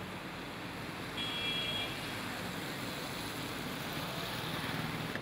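Steady outdoor street noise with vehicle engine rumble over a flooded road. A short high-pitched tone sounds about a second in.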